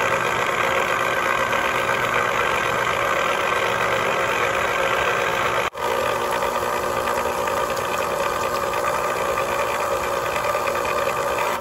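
Cuisinart electric citrus juicer's motor running steadily as a citrus half is pressed onto the spinning reamer, with a momentary break about halfway through.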